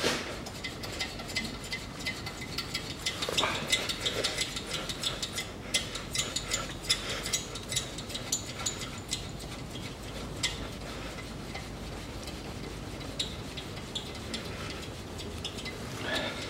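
Ratchet wrench clicking in runs of quick strokes on a seized brake caliper bolt that has been heated to free it. The clicks are dense for most of the first ten seconds and come more sparsely after that.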